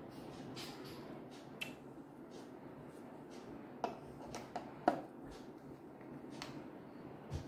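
A few small, sharp clicks and taps over faint room noise, from a small plastic food-colouring squeeze bottle being squeezed over a glass of water and set down on the table.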